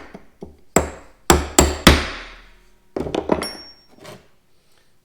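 Hammer blows on metal: four heavy, ringing strikes in the first two seconds, then a quick run of lighter taps about three seconds in and one more near four seconds.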